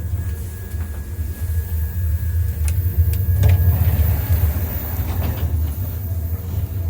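Train running with a steady low rumble. A few sharp clicks come around the middle, and a faint steady whine stops about halfway through.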